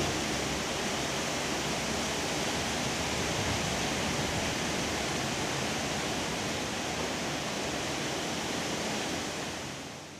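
Steady rushing noise with no pattern or rhythm, spread evenly from low to high, fading out near the end.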